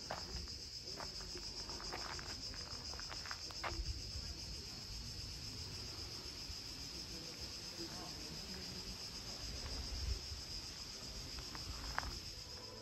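A steady, high-pitched chorus of insects, a fast, even chirring that does not let up. A few brief soft clicks and knocks sound over it.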